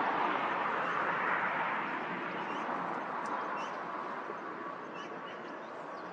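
Jet airliner engine noise, a broad rushing sound loudest at the start and slowly fading, with faint bird chirps over it.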